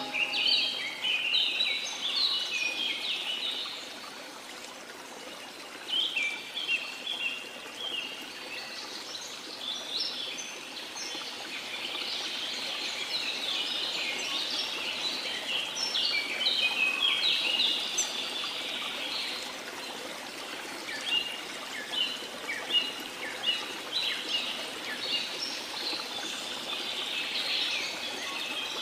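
Many small birds chirping at once in a dense, overlapping chorus over the steady rush of running water.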